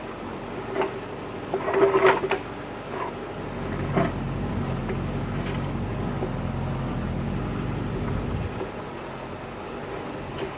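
Tractor backhoe engine running steadily while digging, with several metal clanks and knocks in the first four seconds. The engine works harder and louder from about three and a half seconds in, then eases off near the end.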